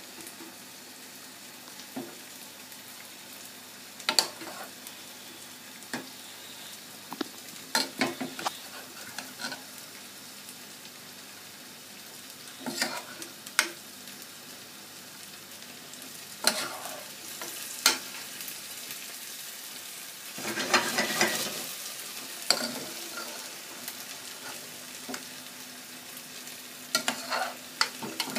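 Metal spoon clinking and scraping against an aluminium saucepan at irregular moments as boiled chicken gizzards are scooped out and tipped into a frying pan of tomato sauce, which sizzles steadily underneath. A denser rush of noise comes a little past two-thirds through.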